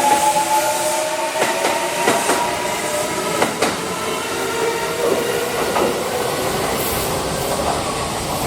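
Train running on rails with a sustained ringing squeal from wheel on rail, the abnormal rail noise. The pitch drifts slightly upward and fades about halfway through, leaving a lower ringing tone. Sharp clicks of the wheels over the track come at irregular intervals.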